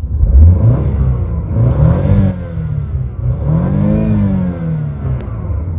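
Car engine being free-revved in park, its pitch climbing and falling several times, the highest rev about four seconds in.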